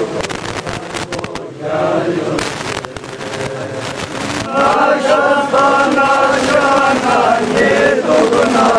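A crowd of men chanting a noha (Shia mourning lament) in unison while beating their chests in matam, the hand strikes heard as sharp slaps. The chanting swells louder about halfway through.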